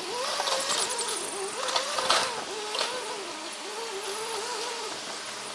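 Toyota forklift's engine and hydraulics working under load, the pitch rising and falling, with a sharp crunch from the wrecked yacht hull about two seconds in.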